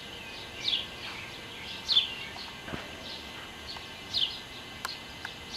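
A songbird repeating a short, downslurred chirp about once a second over a steady outdoor background.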